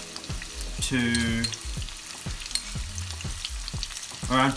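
Sliced onion and garlic frying in oil in a nonstick wok, with a steady sizzle and light clicks and scrapes from a wooden spoon stirring.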